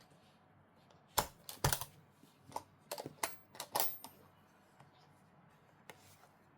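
A watch box and its packaging being handled and opened: a quick run of sharp clicks, taps and light rustles about one to four seconds in, then a single click near the end.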